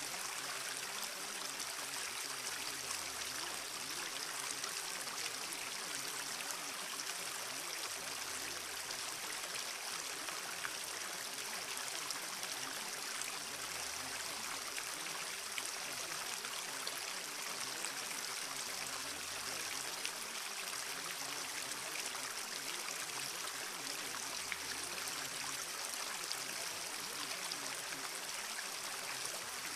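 Steady sound of running water like a stream, unchanging throughout, with a faint steady tone and a low hum that swells and fades about every five and a half seconds.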